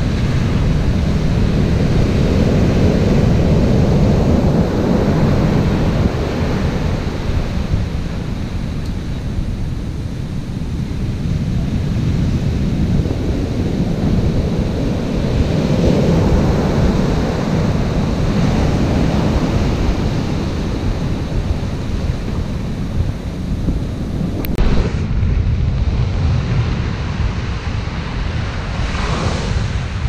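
Heavy storm surf breaking and washing up over a sandy beach, with strong wind buffeting the microphone. The noise swells and eases as the sets of waves come in.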